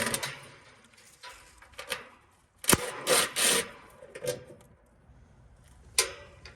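Sheet-metal service panel of a heat pump outdoor unit being opened: sharp clacks and metal scraping, with a loud clack and about a second of scraping nearly three seconds in, and another clack near the end.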